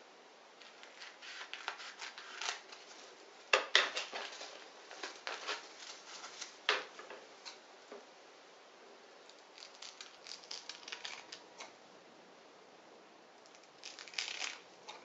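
Scissors snipping a sheet of dried nori seaweed into thin strips: several runs of quick snips with short pauses between, the loudest cuts about four seconds in.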